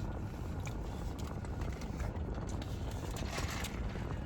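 Close-miked chewing with small wet mouth clicks and smacks, over a steady low rumble of a car's cabin.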